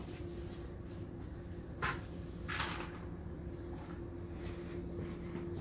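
A few brushy strokes of a broom sweeping a concrete floor, the two clearest about two seconds in, over a steady low hum.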